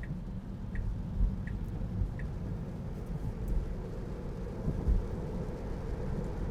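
Cabin noise of a Tesla Model 3 driving on a wet road: a steady low rumble of tyres and road, with four faint turn-signal ticks about three-quarters of a second apart that stop a little over two seconds in.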